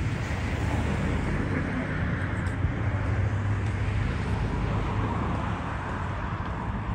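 Steady city road-traffic noise, a continuous rumble and hiss of passing cars, swelling a little as traffic goes by.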